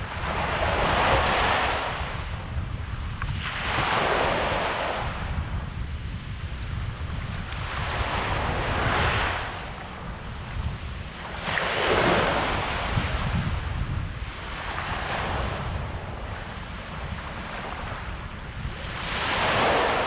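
Small ocean waves breaking and washing up a sandy beach right at the microphone, the rush of the wash swelling and fading in surges every few seconds, over a steady low rumble.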